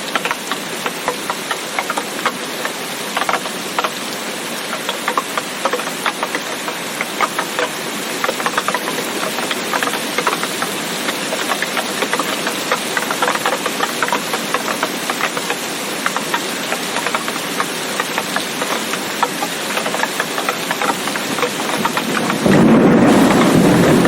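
Steady rain, a dense patter of drops with little low rumble. About a second and a half before the end it jumps suddenly to a louder, deeper rush.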